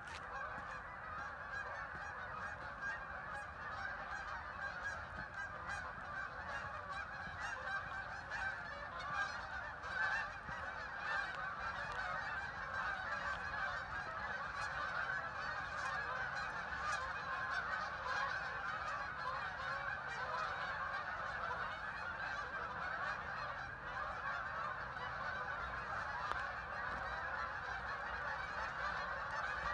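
A huge flock of waterfowl calling all at once, a dense, unbroken chorus of many overlapping voices that makes a strange, continuous noise.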